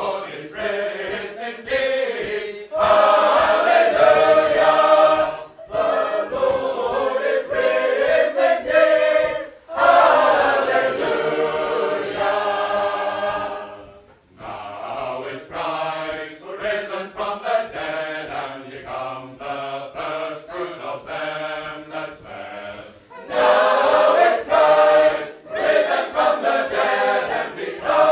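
Sacred Harp shape-note singing: a mixed group of voices singing an a cappella hymn in parts, in full voice, phrase by phrase with short breaks. It is softer for a stretch in the middle and swells loud again near the end.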